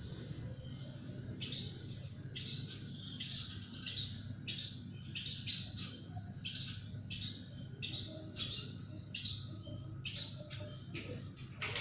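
Small bird chirping: a run of short, high chirps, about one or two a second, starting about a second and a half in, over a steady low background hum.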